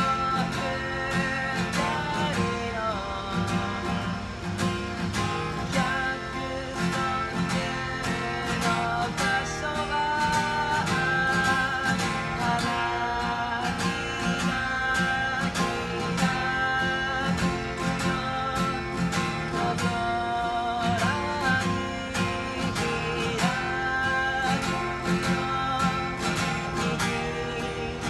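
A man singing a melody in Japanese while strumming his own steel-string acoustic guitar accompaniment.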